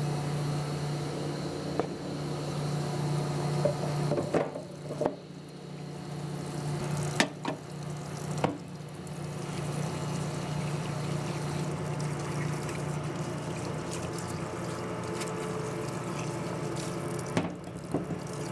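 Parts washer pump running with a steady hum as a stream of cleaning fluid splashes over an aluminium oil filter housing, flushing out leftover blasting sand. A few sharp knocks come from the part being handled in the washer.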